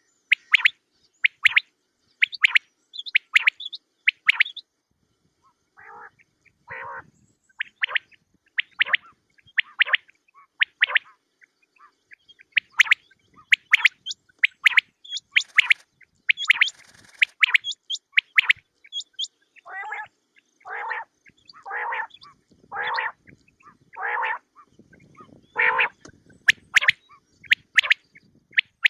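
Quail calls from a hunting lure recording: short, sharp, high chirps repeated in quick groups, with lower, rougher notes about once a second in two stretches, around the 6-second mark and again from about 20 seconds on.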